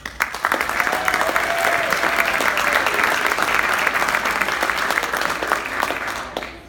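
Audience clapping, starting abruptly and dying away shortly before the end.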